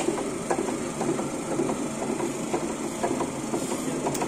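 A workshop machine running steadily, with a repeated light clicking over its hum.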